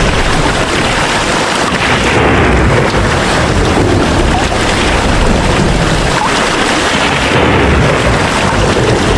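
Heavy rain falling steadily, a loud dense hiss with a deep rumble underneath.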